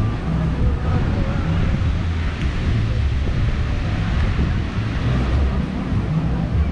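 Wind buffeting the microphone in an uneven low rumble, over the steady wash of ocean surf on the beach, with faint voices of beachgoers in the background.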